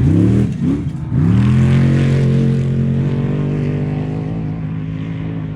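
Off-road race truck engine revving up sharply, easing off, then revving again about a second in and holding steady at high revs while the sound slowly fades.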